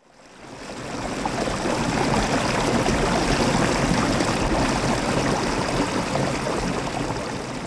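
Shallow stream water running and trickling over rocks, a steady rushing sound that fades in over the first couple of seconds and starts to fade out near the end.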